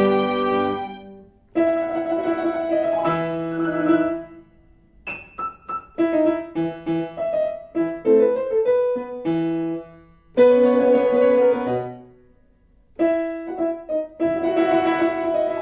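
Solo piano music: phrases of chords and melody with brief pauses between them.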